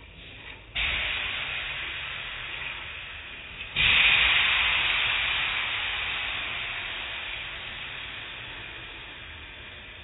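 High-pressure water spray in an automatic car wash, hissing on suddenly about a second in and again, louder, near four seconds in, each fading slowly, over the low rumble of the wash machinery.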